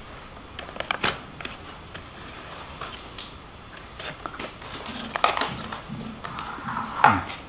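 Spoon clicking and scraping against the dish as a mouthful of fried rice with shredded chicken is scooped up and eaten, with close-up chewing sounds; the sharp clicks are scattered and irregular.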